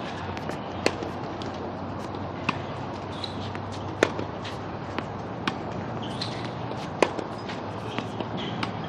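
Tennis ball struck by rackets in a baseline backhand rally: sharp pops of the ball leaving the strings and hitting the court, roughly every one and a half seconds.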